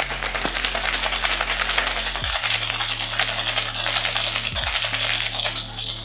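Ice clattering hard inside a cocktail shaker being shaken vigorously: a dense, rapid rattle that starts abruptly. Background music with a low bass line plays under it.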